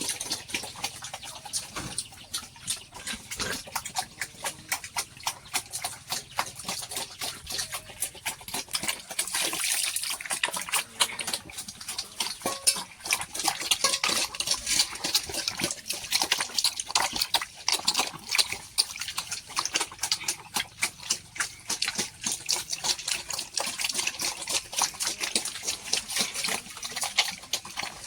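Pigs eating feed: a dense, steady run of quick chewing and smacking clicks.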